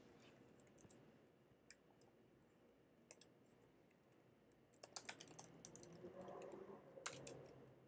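Near silence, with faint scattered clicks of typing on a computer keyboard. The clicks come thickest from about five to seven seconds in.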